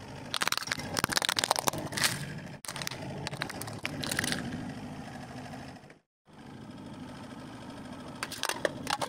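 A car tire rolls over a hollow plastic toy and cracks it apart: a dense run of sharp snaps and cracks for about two seconds, then a few more, over the low, steady running of the car's engine. After a brief break, the engine runs on steadily, and near the end the tire starts crushing an aluminium drink can with sharp crackling.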